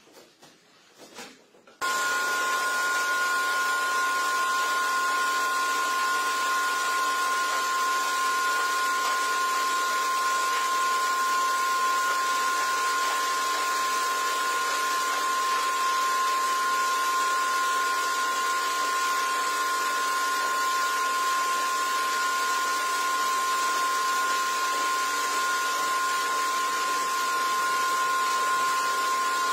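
Pressure washer spraying a jet of water onto a rug: a steady hiss with a steady high whine, switching on suddenly about two seconds in.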